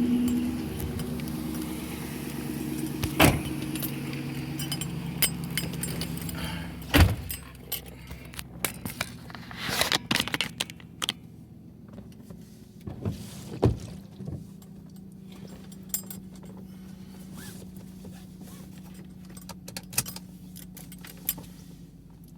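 Pickup truck engine running, heard from inside the cab, louder for the first couple of seconds and then settling into a steady low hum. Keys jangle and small items rattle and click throughout.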